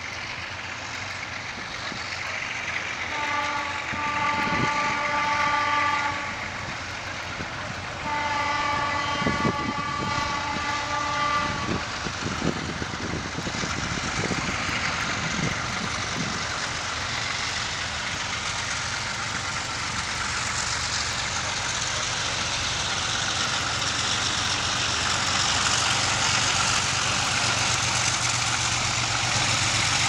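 ALCo RSD16 diesel locomotive sounding its multi-tone horn in two long blasts, about three and eight seconds in, each lasting roughly three to four seconds. After that its V16 diesel engine runs steadily and grows louder as the locomotive approaches hauling a loaded coal train.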